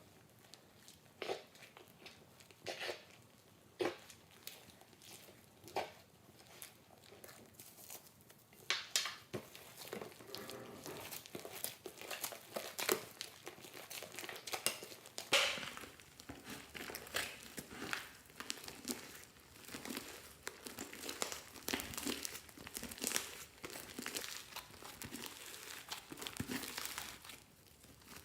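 Crinkling and crackling handling noise: a few separate sharp crackles at first, then from about a third of the way in a denser, continuous crinkling with frequent crackles.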